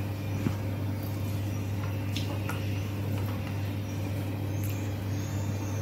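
A steady low hum throughout, with a few faint soft clicks from fingers mixing rice and chutney on a banana leaf.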